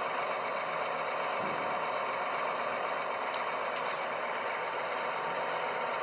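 Truck-mounted air borewell drilling rig running steadily, an even mechanical noise with a few sharp ticks.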